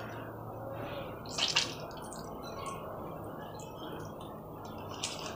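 Water dripping from boiled soya chunks as they are squeezed out by hand, with one brief louder sound about one and a half seconds in.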